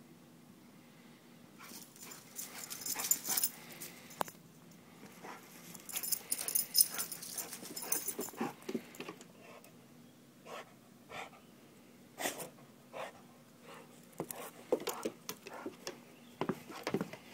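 A dog panting as it moves about, then a scattering of sharp taps in the second half as its paws strike wooden deck steps while it climbs them.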